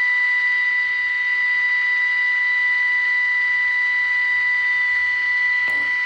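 Small speaker of a five-transistor AM radio playing the steady tone of a modulated 455 kHz test signal over hiss, as the IF transformer is peaked by ear. There is a faint click near the end.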